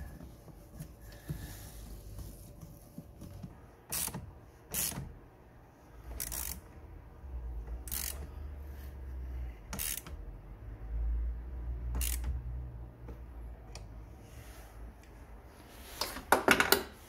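A hand ratchet with a socket extension clicks on its back-strokes as it turns a car battery terminal clamp nut, with a click every second or two. A short, louder rattle of clicks comes near the end.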